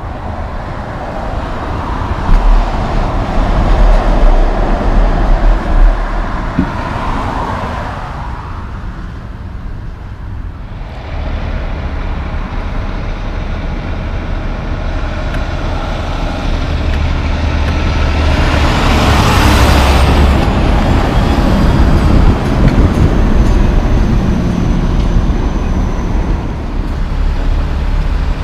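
Two diesel semi-trucks driving past in turn: first a big rig passing at highway speed with tyre and wind rush, then, after a cut, a Peterbilt hauling a Super B trailer set rumbling by at low speed. Near the middle of its pass there is a brief loud hiss, and its engine runs on steadily as it pulls away.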